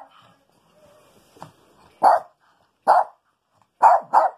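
Maltese dog barking: one bark about two seconds in, another a second later, then two quick barks near the end.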